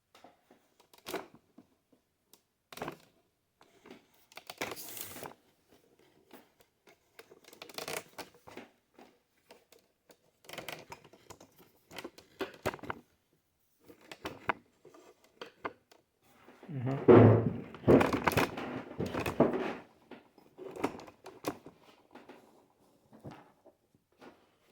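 Handling noises from a workbench: scattered small knocks, scrapes and rustling as small containers and tools are moved, with a louder spell of clattering and bumping about two-thirds of the way through.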